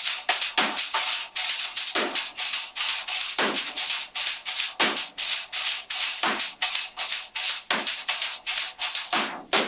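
Miked tambourine played with a plastic-bristled blast stick in a steady groove. Quick jingling strokes run throughout, with a deeper thump from the head about every second and a half.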